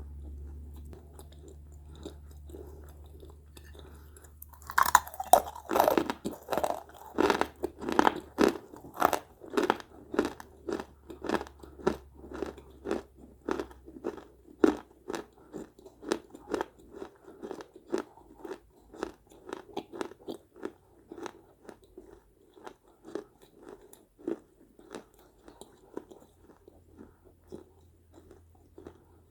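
Close-up crunching of small baked-clay pieces being bitten and chewed. After a few seconds of faint low hum comes one loud bite, then steady chewing crunches about two a second that gradually grow softer.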